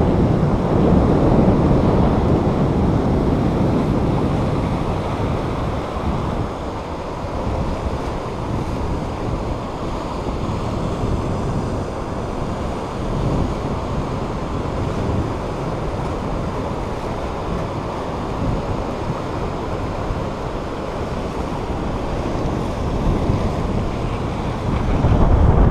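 Gulf surf breaking and washing below a fishing pier, a steady rushing that swells and eases, with wind buffeting the microphone.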